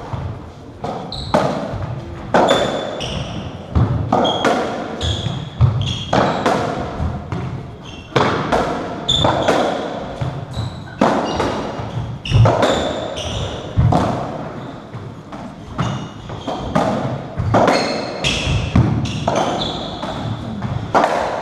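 Racketball rally in a squash court: a steady run of sharp ball strikes off the rackets, walls and floor, echoing off the hard walls, with short high squeaks of shoes on the wooden floor between shots.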